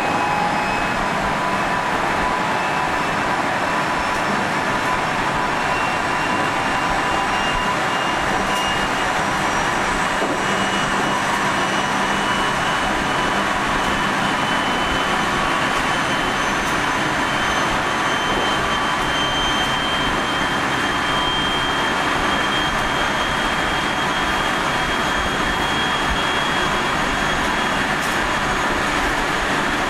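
Running sound of 373 series motor car KuMoHa 373-11, heard inside the car: a steady rumble of wheels on rail with a whine from its MT68 traction motors that rises slowly in pitch as the train gathers speed. This car is known for an unusually strong abnormal running noise.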